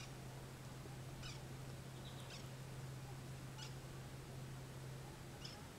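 Quiet outdoor ambience: a steady low hum under five short, high chirps from a small animal, spread across the few seconds. The hum fades near the end.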